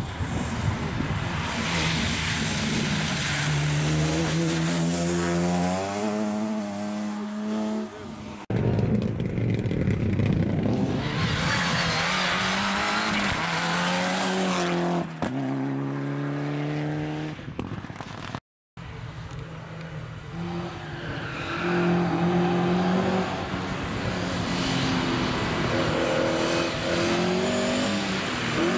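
Rally cars driven hard past the spectator one after another, their engines revving, climbing in pitch and dropping back at each gear change, several times over. Abrupt cuts join the passes. Near the start there is a car splashing through a flooded track and throwing water.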